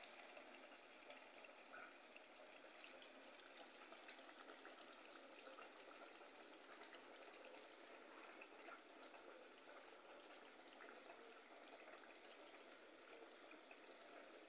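Very faint, steady sizzling of tinned fish in tomato sauce cooking in a pan on the stove, with a few soft ticks and scrapes of a silicone spatula on the plate and pan.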